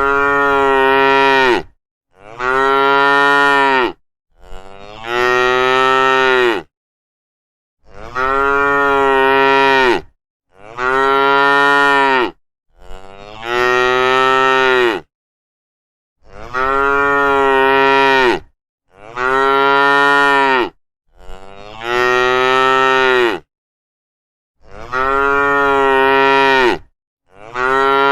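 A cow mooing again and again: about eleven long moos of roughly two seconds each, coming in groups of three with short pauses between.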